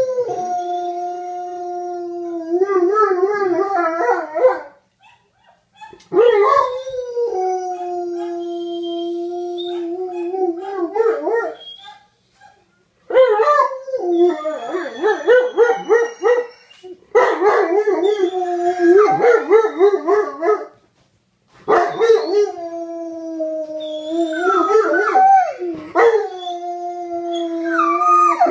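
Two male dogs howling in five long bouts with brief pauses between. One holds a long steady note while a second, wavering voice comes and goes over it. The uploader takes the howling for mating calls set off by a female in heat.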